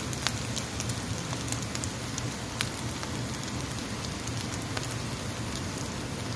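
Okra and scrambled eggs sizzling in oil in a frying pan: a steady hiss with scattered sharp pops and crackles.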